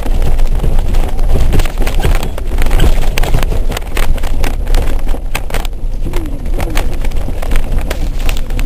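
Nissan Pathfinder SUV driving across a bumpy field, heard from inside the cabin: a steady low rumble of engine and tyres with frequent knocks and rattles as it bounces.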